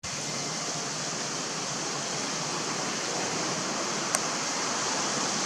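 Steady rushing outdoor background noise, even and unbroken, with a single faint click about four seconds in.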